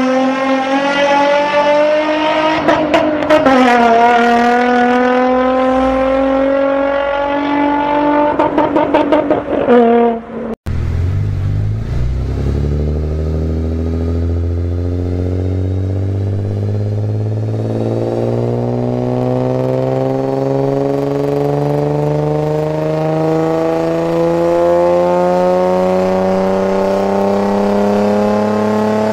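Nissan 350Z's VQ35 V6 accelerating hard: revs climb, drop at an upshift about three seconds in and climb again, with crackling from the exhaust before a sudden cut. Then the engine pulls under load on a dynamometer, its revs rising slowly and steadily for the rest of the time.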